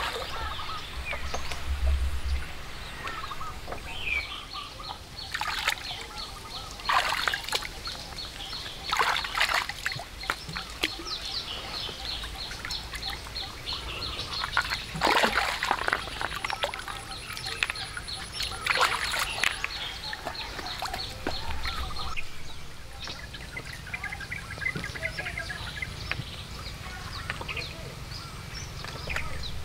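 Water splashing and sloshing around a person wading in a pond and lifting rocks out of it, in irregular bursts, with birds calling in the background.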